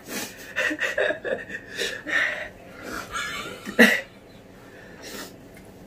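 Sharp hissing breaths, sniffing and heavy breathing from people eating extra-spicy buldak noodles, a reaction to the burn in mouth, eyes and nose. A sharper, louder breath or snort comes just before four seconds in.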